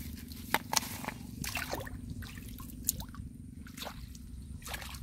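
Hands groping in shallow muddy water: irregular squelches, small splashes and drips as the mud and water are worked by hand.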